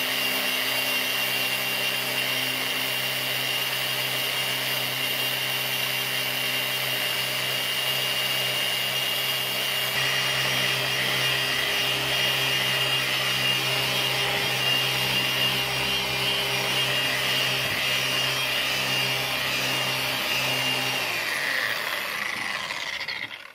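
Griot's Garage random orbital buffer running steadily at one speed, its pad working compound over a glass stovetop to buff out brown burner stains. It is switched off near the end, and the motor hum falls in pitch as it spins down.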